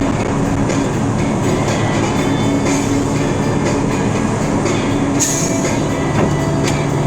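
Steady drone of a vehicle driving at highway speed, heard from inside the cab, with a constant engine hum. A light regular clicking, about two to three a second, runs through it, with a brief hiss a little after five seconds in.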